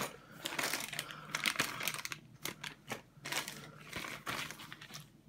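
Clear plastic parts bags crinkling and rustling as hands sort through them, with irregular crackles.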